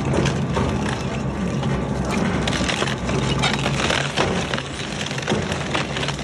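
Industrial twin-shaft shredder tearing up a mattress: a steady low drive hum under constant crunching, with many sharp cracks and snaps as the toothed rotors rip into it.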